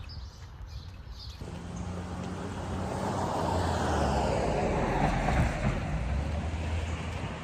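A motor vehicle passing close by: its engine hum and road noise build over a few seconds, peak midway, then fade away.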